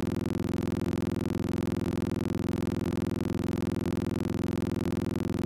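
Steady electronic buzzing drone: one low pitched tone with a rapid fine pulse, holding the same pitch and level without change.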